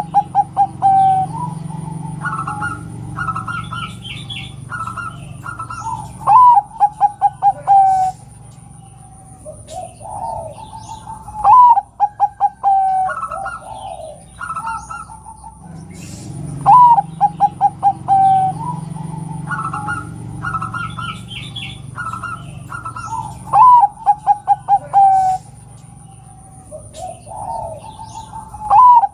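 Zebra dove (perkutut) cooing: a phrase every five or six seconds, each a rising note and then a quick rolling run of short coos falling slightly in pitch. Higher chirps come between the phrases, over a steady thin high whine.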